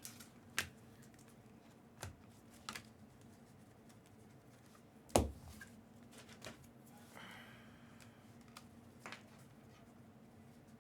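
Trading cards being handled on a table: sparse light taps and clicks as cards are flipped and set down, one louder tap about five seconds in, and a brief soft slide a couple of seconds later.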